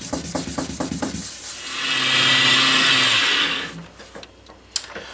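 2000-grit wet-and-dry paper rubbed by hand in quick strokes over a wet acrylic turntable lid. About two seconds in, a slow-spinning rotary car polisher with a polishing mop runs on the acrylic for about two seconds, then winds down.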